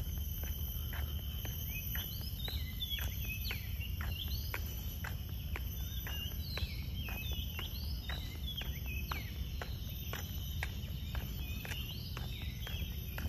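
Birds chirping in short rising and falling calls over a steady, high-pitched insect drone, with sharp ticks about two or three a second and a low rumble underneath.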